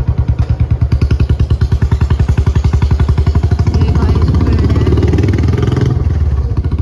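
Royal Enfield Bullet's single-cylinder engine, fitted with a 'bada Punjab' aftermarket silencer, thumping in even beats at idle. About four seconds in it is revved and the beats run together as the bike pulls away.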